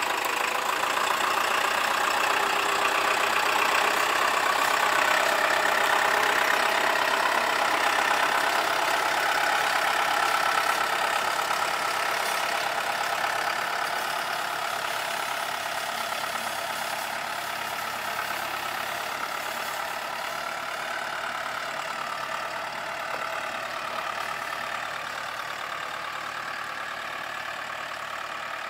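2009 Case IH Farmall 95's four-cylinder turbo diesel engine (CNH 445TA, 274 cubic inch) running steadily at idle, slowly growing quieter over the second half.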